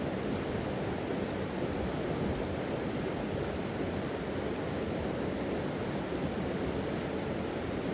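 Flowing water rushing steadily, an even noise with no bowl tone sounding.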